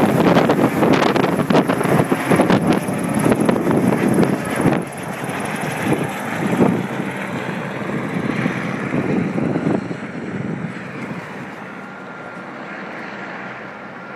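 Helicopter rotor chop and turbine running as it passes overhead and flies away, fading steadily.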